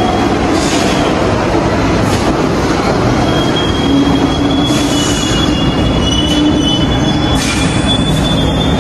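Subway train running along the rails with a steady rumble. A high-pitched wheel squeal comes in about three seconds in and holds to the end.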